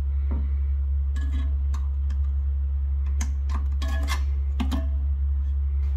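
Steady low electrical-sounding hum throughout, with scattered light clicks and taps of the steel flush lever being handled and seated over a Flushmate pressure-assist cartridge's actuator.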